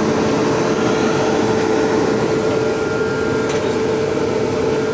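Steady machinery noise inside a train locomotive's cab, a constant hum over an even noise with no breaks.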